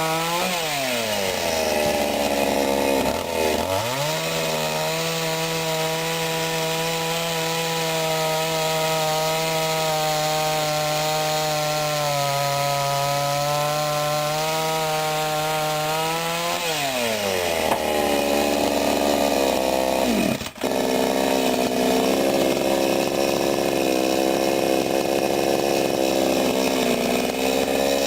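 Sadko GCS 510E two-stroke petrol chainsaw running at high revs. Its engine drops to idle twice, just after the start and again about 16 seconds in, and revs back up each time.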